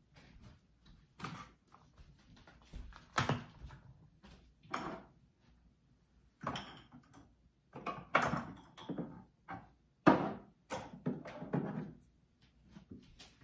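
Seasoning jars and containers being taken down from a kitchen shelf and set on the counter: a string of separate knocks and clatters of varying loudness, with short gaps between them.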